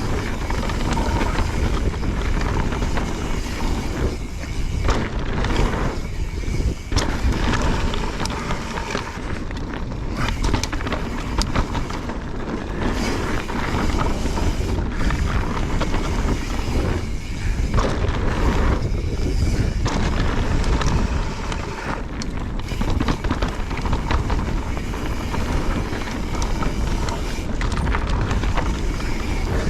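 Heavy wind rumble on the rider's camera and tyre roar from a mountain bike riding a dirt jump trail, with the bike's rattles and knocks over the bumps and a few short lulls.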